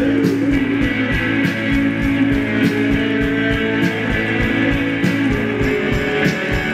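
Rock band playing live: electric guitars over a steady drum beat.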